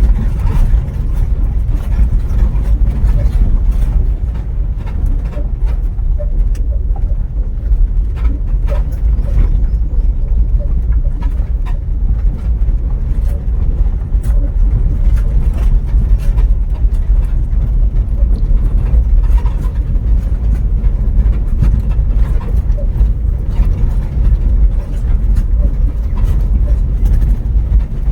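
A vehicle driving along a road: a loud, steady low rumble of road and running noise, with frequent small clicks and knocks.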